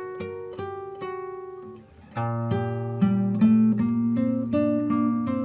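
Background music with a melody of picked notes; about two seconds in it turns louder and fuller, with a low bass line coming in.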